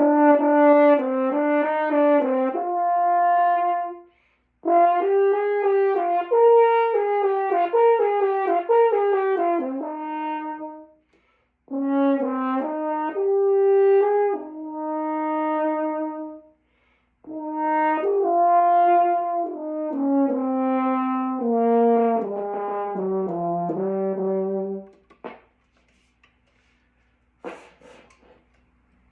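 Brass instrument warm-up: four runs of stepped notes up and down, each a few seconds long with a short break for breath between them. A few faint clicks follow near the end.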